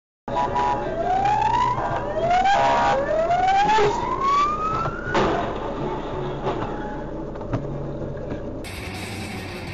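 Emergency-vehicle siren wailing, its pitch sweeping upward three times, each sweep longer than the last, over city traffic noise. It ends about five seconds in with a sharp knock, and steady traffic noise carries on.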